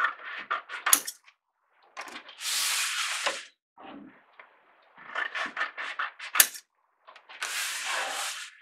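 Scissors snipping the corners off a sheet of heavy 140 lb cold-press watercolour paper: runs of short snips, twice broken by about a second of the stiff sheet rustling as it is slid round on the table.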